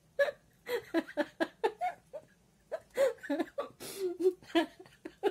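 A woman laughing and giggling in a string of short bursts, mixed with a few indistinct spoken sounds.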